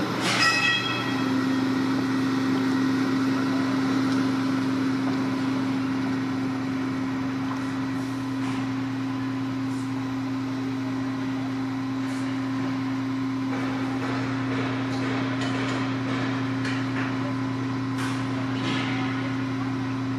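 Heavy diesel engine of a fire appliance running at a constant speed, a steady low drone, as the 64m turntable ladder is held extended. A brief high pitched sound comes right at the start, and a few light clicks follow later.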